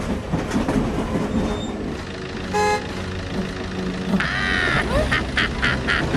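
Cartoon vehicle sound effects over a low engine rumble: a short horn toot about two and a half seconds in, then a pitched rising-and-falling tone, and a horn sounding in about five quick beeps near the end.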